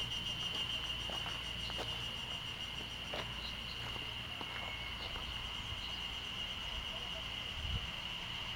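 A chorus of insects giving one steady, high-pitched, unbroken trill, with a few faint ticks and a soft low thump near the end.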